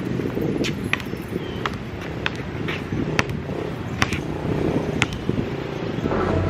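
Basketball bouncing on a concrete court: a sharp slap every half second to a second, over a steady low outdoor rumble.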